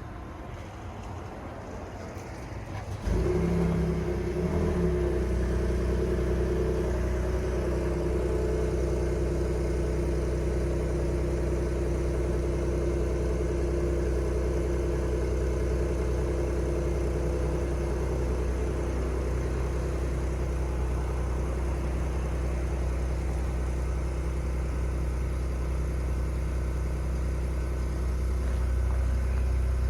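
Cold start of a 2021 Ford F-150 PowerBoost's 3.5-litre twin-turbo V6 at about −23 °C. The engine catches suddenly about three seconds in, then idles steadily with a humming, grinding drone made of several held tones. The owner calls this a cavitating or grinding noise, and says it is heard in Park and goes away in reverse or drive.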